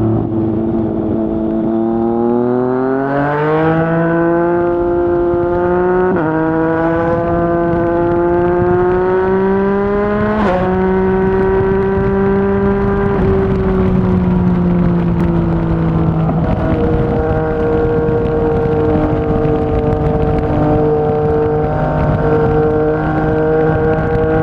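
Yamaha MT-09's inline three-cylinder engine through a Yoshimura R55 slip-on exhaust, pulling hard with its pitch rising and dropping sharply at upshifts a few times in the first ten or so seconds. It then eases off and holds a steady pitch at cruising speed.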